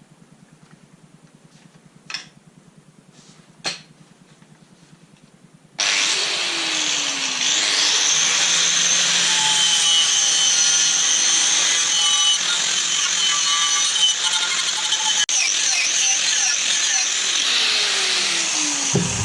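Two light knocks, then about six seconds in a power tool starts up and runs steadily with a high whine, its pitch wavering under load.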